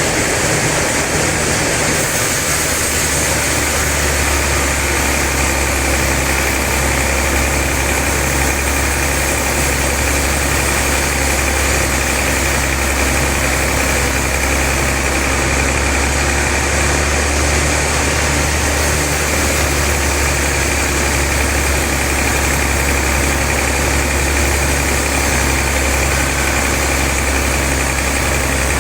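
Log sawmill machinery running steadily with a constant mechanical drone; a strong low hum comes in about two seconds in and holds.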